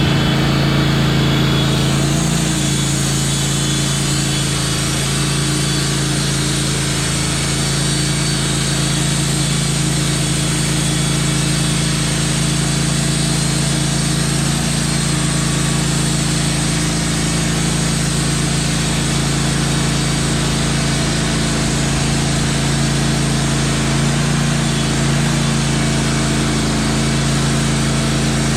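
Wood-Mizer LT15 portable sawmill's engine running steadily at constant speed, with a higher hiss joining about two seconds in.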